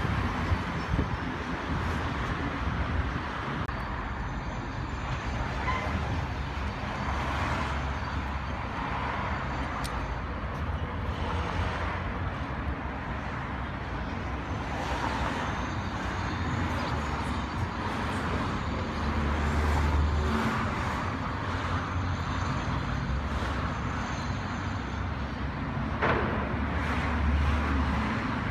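Steady street traffic: cars passing on a busy road beside the pavement, swelling louder as vehicles go by about twenty seconds in and again near the end.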